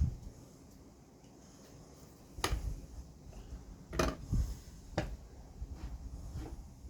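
A few sharp knocks and clacks of wood and tools being handled on a workbench, the loudest three about a second apart in the middle, with softer ones after.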